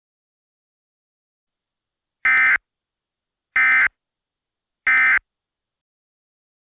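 Emergency Alert System end-of-message tones: three short, identical blasts of SAME digital data, about a second apart, marking the end of the alert.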